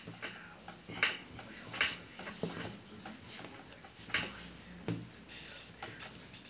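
Dough being kneaded by hand on a floured tabletop: irregular soft thumps and slaps, roughly one a second, as the dough is pushed and turned.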